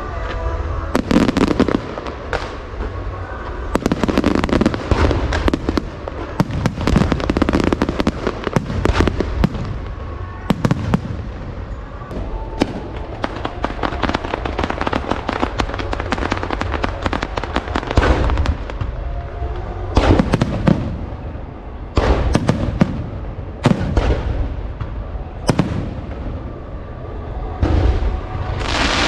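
Aerial fireworks display: shells bursting one after another in sharp bangs and dense crackling, with heavier volleys every few seconds over a low rumble.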